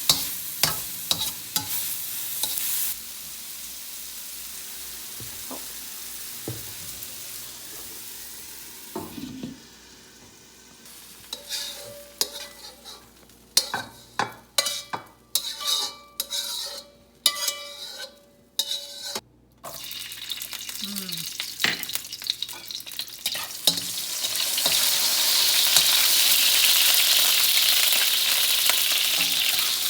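Leeks being stir-fried in hot oil: a frying sizzle with a utensil scraping and knocking against the pan, a run of sharp strokes in the middle. The sizzle swells loud near the end.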